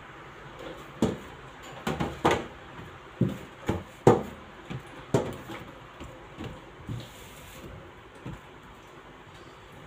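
A metal baking tray knocking and clattering on a stainless steel worktable as balls of dough are set onto it: a dozen or so irregular knocks, the loudest about four seconds in, tapering off after about seven seconds.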